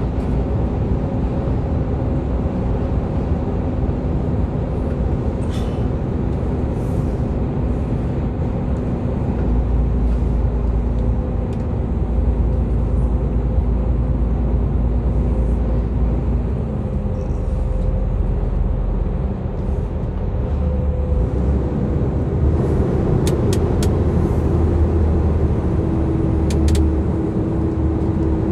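Loaded container lorry's diesel engine and road noise while driving, a steady drone; about halfway through the engine note drops, and a higher note comes in near the end.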